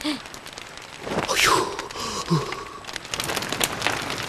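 Campfire crackling with a dense run of small pops and snaps that grows louder about three seconds in. About a second in there is a short falling sound effect.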